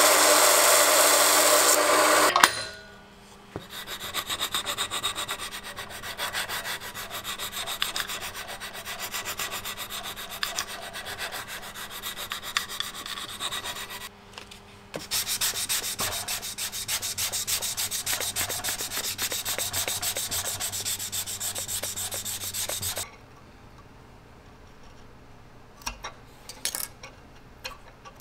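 A small vertical belt sander running as brass pins are ground down, cutting off about two seconds in. Then long spells of sanding as the brass pins are taken flush with the wooden handle, in quick irregular rubbing strokes, with a short break midway. Near the end it goes quiet but for a few small crinkles and clicks of masking tape being wrapped.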